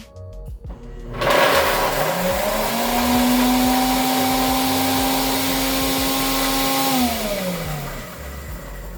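Countertop blender grinding chocolate pieces and nuts: the motor starts about a second in, rises in pitch to full speed, runs steadily, then is switched off and winds down near the end.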